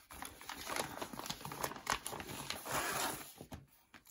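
Rustling and crinkling of a cross-stitch kit's packaging being opened by hand, with many light clicks and taps; it dies away shortly before the end.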